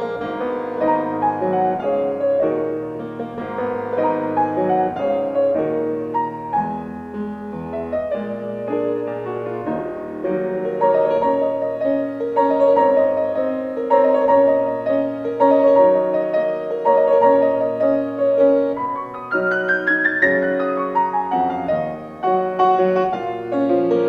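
Solo piano music played on a Steinway grand piano: a slow, lyrical melody over chords. About four-fifths of the way through, a quick run sweeps up the keyboard and falls back down.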